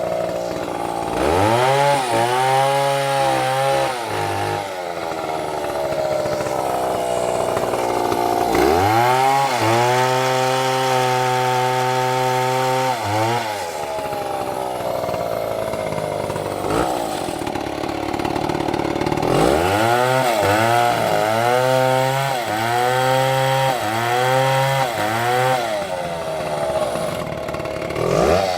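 Stihl MS720 chainsaw cutting into a tree, its engine revving up to full speed, holding for a few seconds and dropping back to idle, three times over.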